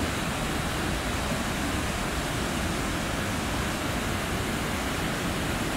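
Waterfall cascading down rock ledges, a steady, very loud rush of falling water.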